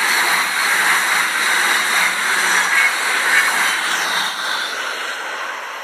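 NS Sprinter electric train passing close by: a steady rush of wheel and air noise that fades from about four seconds in as the train goes by.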